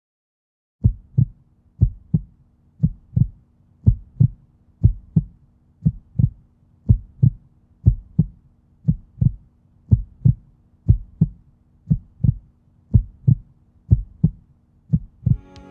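Heartbeat sound effect: low thumps in close lub-dub pairs, about one pair a second, starting about a second in. Music begins to fade in near the end.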